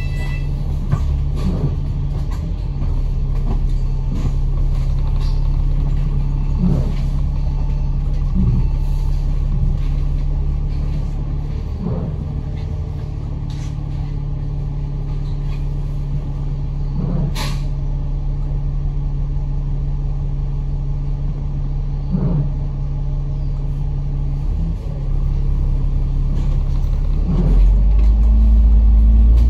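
Bus engine running steadily at low revs, heard from inside the bus, with scattered knocks and rattles. About two-thirds in there is one brief sharp sound. Near the end the engine gets louder and rises in pitch as the bus accelerates.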